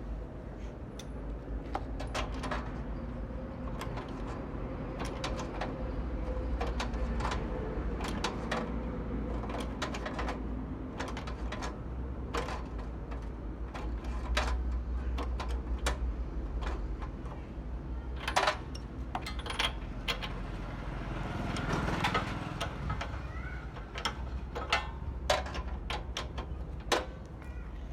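Scattered clicks and light metal knocks of hand work on a small petrol generator, over a steady low rumble.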